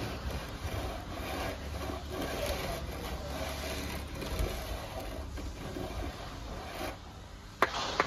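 Plastering trowel scraping and rubbing cement plaster over a concrete column, with a sharp knock near the end.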